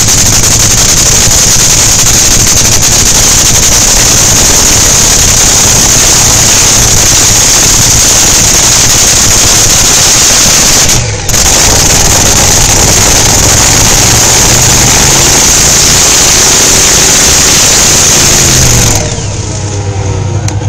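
Nitromethane-burning, supercharged 500-cubic-inch Top Fuel Hemi engine running at a pit warm-up, heard from right beside the car and loud enough to saturate the recording. The sound dips briefly about eleven seconds in and falls off noticeably near the end.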